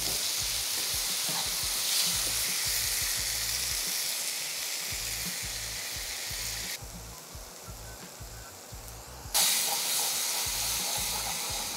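Seasoned beef pieces sizzling as they sear in a hot frying pan. The sizzle drops away for a couple of seconds, then a sudden, louder hiss and sizzle comes in about two-thirds of the way through as water is poured into the hot pan to deglaze it, easing off after.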